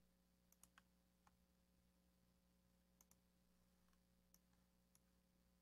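Near silence: room tone with a few faint computer mouse clicks.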